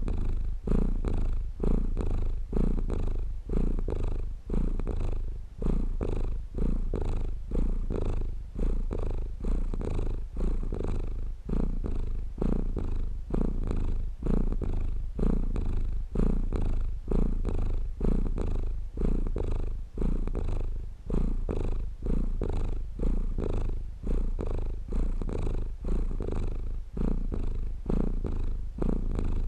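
Domestic cat purring close up, a steady low rumble that swells and eases in a regular rhythm of about two strokes a second as the cat breathes in and out.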